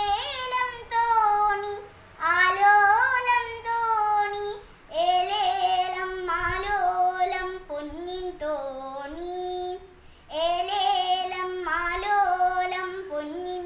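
A young girl singing a Malayalam light song (lalithaganam) solo and unaccompanied, in phrases of a few seconds with short breaths between them.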